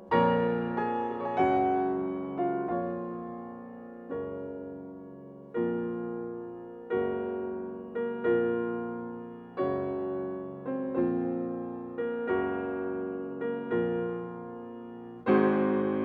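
Background music: slow chords, each struck sharply and left to fade, about one every second and a half.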